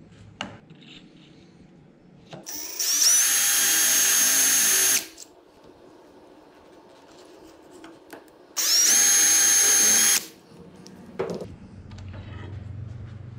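Cordless drill spinning up and running in two bursts, about two and a half seconds and then about a second and a half, drilling bolt holes into a metal mounting bracket.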